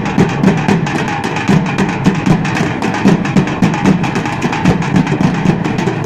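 A group of drummers beating large metal-shelled drums with sticks in a fast, dense, driving rhythm, the strokes coming many times a second without a break.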